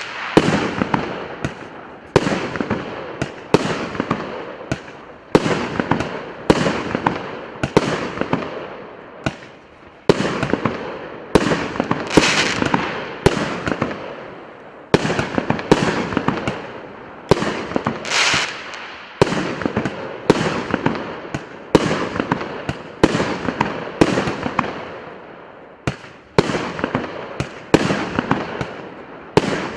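A 99-shot firework cake of 1.1-inch (28 mm) calibre firing shot after shot, about one a second. Each shot is a sharp report followed by a fading crackle of the bursting effects.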